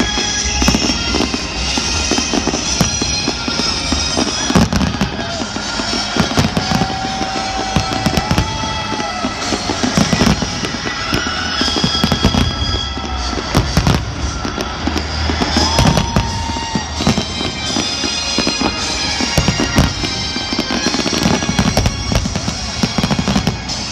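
Aerial fireworks shells bursting in quick succession, a dense barrage of bangs and crackling.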